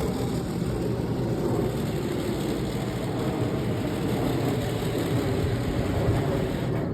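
Jet engines of a Boeing 767 freighter, a steady low rumble.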